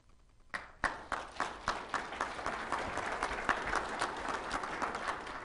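Audience applauding, beginning about half a second in with a few separate claps and quickly filling out into steady applause.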